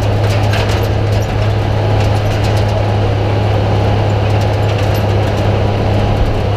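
Pre-war Leyland Metz turntable ladder fire engine on the move, its engine running with a steady low drone, with light clicks and rattles over it.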